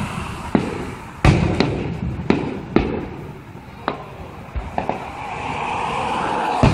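Aerial fireworks shells bursting: a string of about ten sharp booms and cracks at irregular intervals, the biggest about a second in and at the very end, over a steady background rush that swells in the last couple of seconds.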